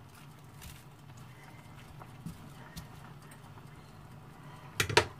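Wooden spatula working vegetables in a frying pan: a few faint scrapes and clicks over a steady low hum, then two sharp knocks in quick succession near the end as the wooden spatula strikes the pan.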